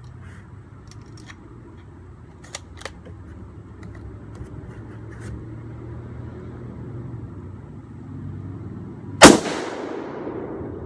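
A single rifle shot from a Remington 700 chambered in .260 Remington, about nine seconds in, followed by an echo that fades over about a second; it is the shot that takes out all the water-bottle targets. Before it, a few faint clicks over a low steady hum.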